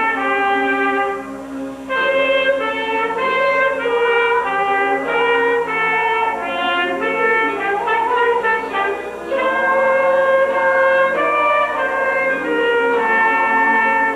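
Instrumental music led by brass, a trumpet-like melody of held notes over chords.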